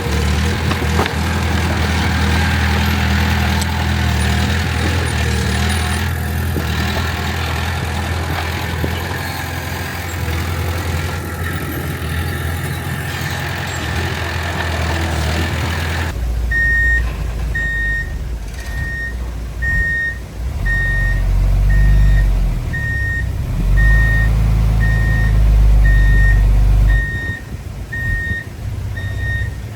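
Heavy diesel earthmoving machinery running steadily. Just past halfway the sound changes abruptly to a deep engine rumble with a reversing alarm beeping about one and a half times a second.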